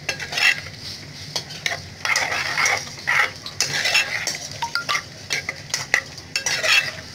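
Steel spoon stirring boiled black peas through a thick, wet masala in a metal pot, in repeated irregular strokes that scrape and knock against the pot.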